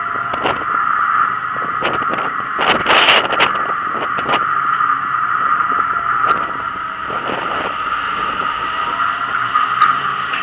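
Wind and ship noise on the open aft deck of a ship in rough seas: a steady hum with scattered sharp taps and knocks, and a wave breaking over the deck near the end.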